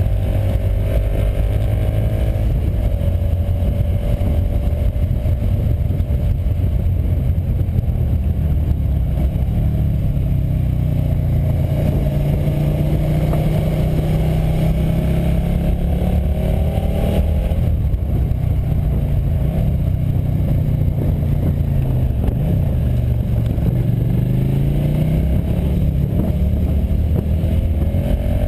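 Motorcycle engine running under way, recorded from a camera on the bike, with its pitch climbing and falling back several times as the rider accelerates and eases off through the bends, over a steady rush of wind.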